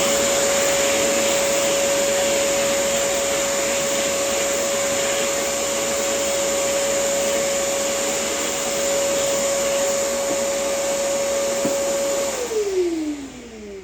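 Vacuum cleaner running steadily, with a constant motor whine over a rushing hiss, taking sanding dust off a cedar guitar top. It is switched off about twelve seconds in, and its pitch falls as the motor winds down.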